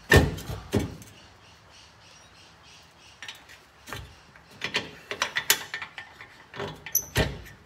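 Steel tow ball mount slid into a 4x4's hitch receiver: two loud metal clanks as it goes in, then scattered metallic knocks and rattles as it is worked into line. Near the end come two more knocks with a brief high ring.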